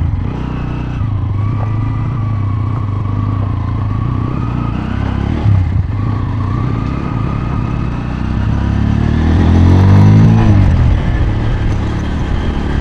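Bajaj Pulsar N160's single-cylinder engine pulling away from a stop and accelerating, its note climbing strongly about nine seconds in.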